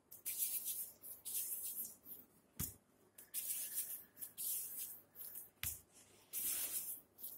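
Hands pressing and rolling stiff mathri dough into small flat balls over a steel plate: a run of soft, scratchy rubbing and patting sounds, with two sharp clicks, one about two and a half seconds in and one about five and a half seconds in.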